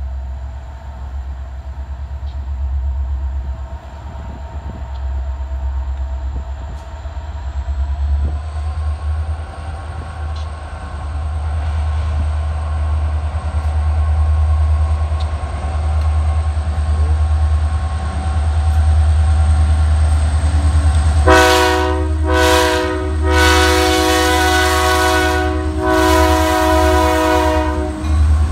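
Diesel freight locomotives approaching a grade crossing, a low engine rumble growing louder. In the last quarter the lead locomotive sounds its multi-note air horn in a series of blasts, the later two long: the grade-crossing warning.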